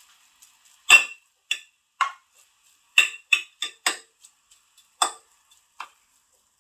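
Metal fork and plastic spatula tapping against a glass baking dish while fried vermicelli is spread in it: about nine sharp taps at uneven intervals, the first, about a second in, the loudest.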